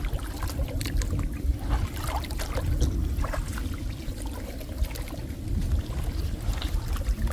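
Water splashing and trickling in irregular small strokes over a steady low rumble.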